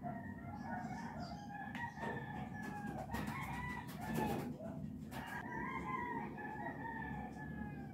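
Roosters crowing again and again, one long wavering crow after another, with a few light clinks of a metal spoon against a drinking glass in the middle.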